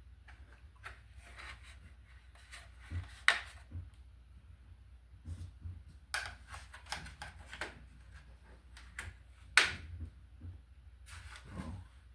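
Handling noise from a metal-mesh laptop cooling pad and its packaging: scattered rustling and light clicks, with two sharp knocks, about three seconds in and near the end.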